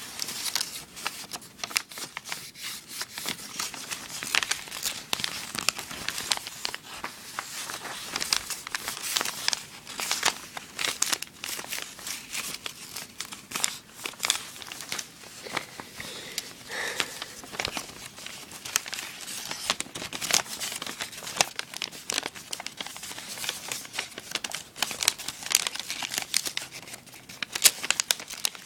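A sheet of origami paper being folded and creased by hand, with continual irregular crinkling and rustling.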